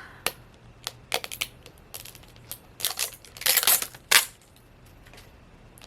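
Hard little plastic clicks and clatters, then a denser rustle of plastic about three seconds in, as a Mini Brands plastic capsule and its wrapping are worked open by hand.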